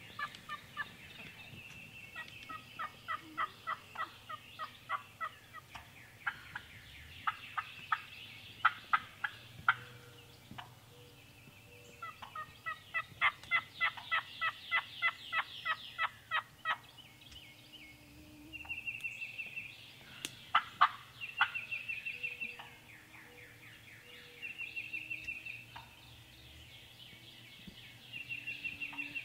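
Wild turkeys calling in runs of short, evenly spaced notes, with gobbling.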